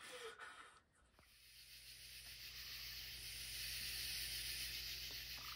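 A faint steady hiss over a low hum comes in about a second in, after a brief near-silence, with a short buzzy tone near the end.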